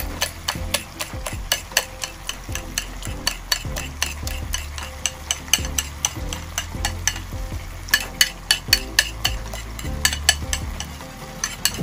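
A spoon clicking and scraping against a ceramic bowl as beaten egg is pushed out into a pan, with rapid, irregular clicks over the low bubbling of a simmering tomato sauce.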